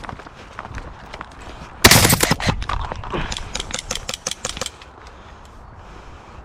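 Airsoft guns firing in bursts: a loud rapid burst about two seconds in, followed by a run of quick, evenly spaced shots that stops a little after halfway.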